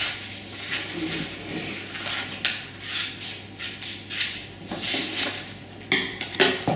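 Scissors cutting a sheet of paper: a run of irregular snips with paper rustling, then a few sharper clacks about six seconds in as the scissors are set down on the table.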